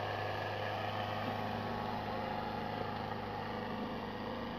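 Diesel engines of two tractors, a Farmtrac 60 and a Sonalika RX, running steadily under full load as they pull against each other, chained back to back in a tug of war.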